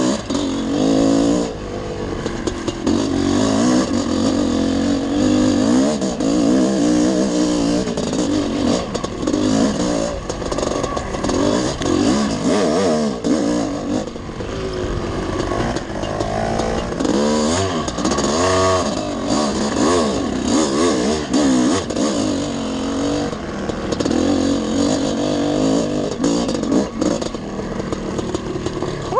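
Dirt bike engine running under way on a singletrack trail, its revs rising and falling again and again with the throttle.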